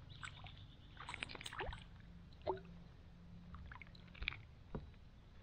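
Faint, irregular small water splashes and drips with a few light clicks over a low steady rumble.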